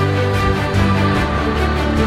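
Background music with held tones and a steady beat.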